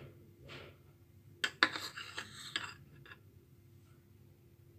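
Metal spoon clinking and scraping against a steel mixing bowl as ghee is spooned onto flour: one sharp clink about one and a half seconds in, then a short run of lighter taps and scrapes.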